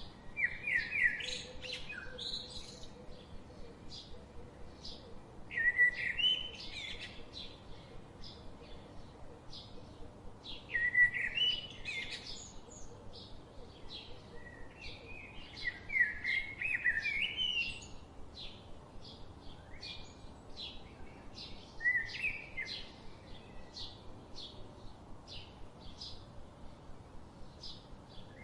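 Small pet parrots chirping. A loud chirping phrase comes every four to six seconds over a steady run of quick, short chirps.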